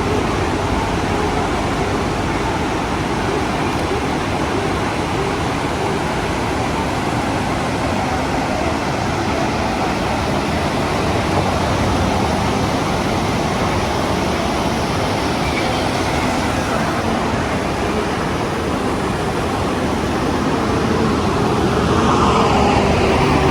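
Waterfall rushing: a steady, loud wash of falling water. Near the end a louder sound with a pitch to it rises over the rush.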